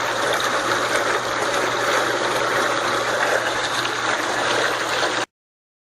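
Washing machine running: a steady rush of water over a constant low hum, cutting off suddenly about five seconds in.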